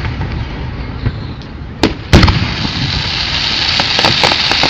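Fireworks going off: two sharp bangs about two seconds in, the second the louder, then a crackling hiss that grows steadily louder toward the end.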